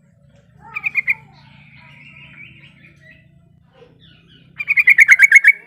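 Yellow-vented bulbul calling: a short burst of rapid chattering notes about a second in, then a louder run of about ten quick notes near the end that drop slightly in pitch.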